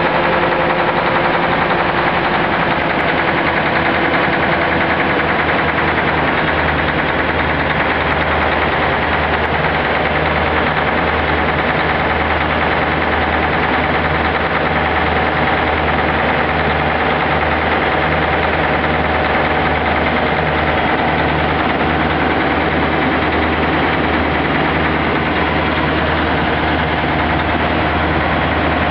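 Scania V8 diesel engine of a Tecniwell pump unit running steadily at a constant speed, loud, with a low, even drone.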